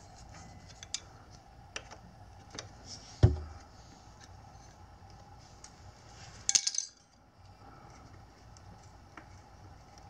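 Small metallic clicks and clinks of a hex key and bolts being worked on a motorcycle's rear disc brake caliper, with a single louder knock about three seconds in and a brief jangling rattle of metal parts about six and a half seconds in.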